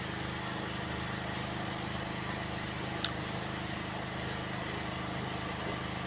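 Steady low hum of a motor running, with one faint click about three seconds in.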